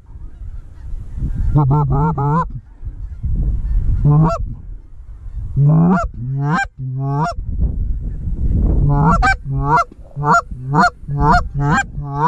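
Canada goose honking: a quick run of honks about two seconds in, a few single honks through the middle, and a fast string of honks over the last three seconds, with wind rumbling on the microphone.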